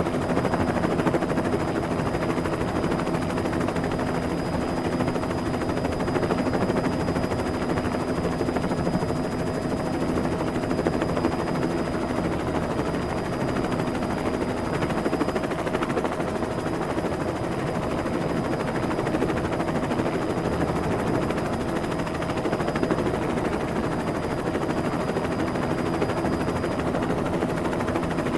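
Helicopter sound effect: a steady rotor chop with engine noise and a thin, steady high whine, unchanging throughout.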